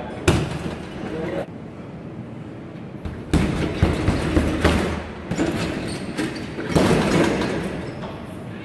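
Kicks and punches landing on a hanging heavy punching bag: one sharp hit just after the start, a run of several hits between about three and five seconds in, and another near seven seconds, each echoing in a large hall.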